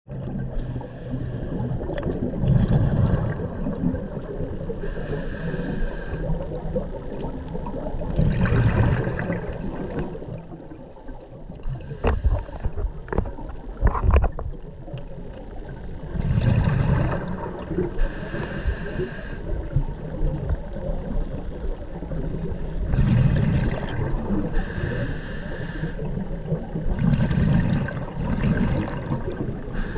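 A scuba diver breathing through a regulator underwater. Each breath in is a hiss through the demand valve, and each breath out is a bubbly rumble of exhaust bubbles, the cycle repeating about every six seconds. A few sharp clicks come about halfway through.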